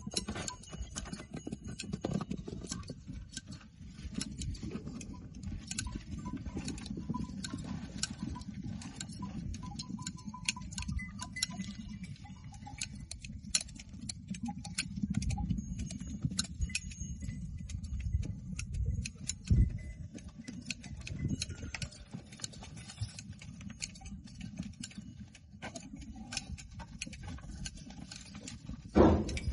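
Goats being sheared by hand: frequent sharp snips and clicks over a steady low wind rumble on the microphone, with a louder knock near the end.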